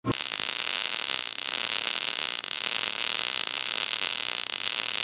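MIG welding arc on thin-wall steel tubing: it strikes abruptly with a brief thump and then runs as a steady crackling hiss.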